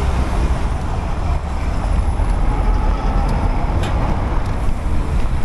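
Street traffic and road noise heard from a moving bicycle, with a heavy, steady low rumble.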